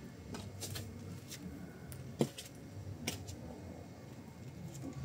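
A few scattered light clicks and taps from someone getting up from a table and moving things, the two sharpest about two and three seconds in, over a faint steady low hum.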